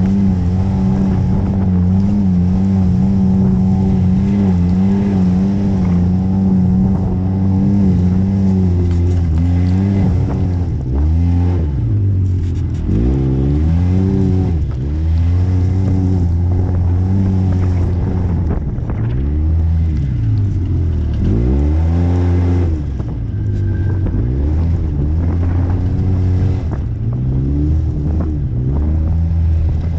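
Polaris RZR S side-by-side engine heard from on board, running at a steady pitch for about the first nine seconds, then revving up and dropping back again and again as the throttle is worked over the trail.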